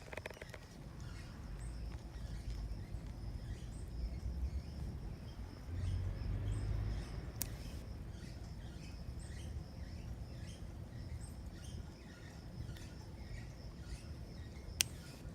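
Outdoor ambience: faint bird chirps over a low rumble, with two sharp clicks, one about halfway through and one near the end.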